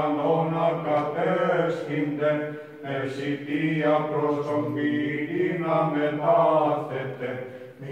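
Male voice chanting Orthodox liturgical chant in long, held notes, with short pauses between phrases about three seconds in and near the end.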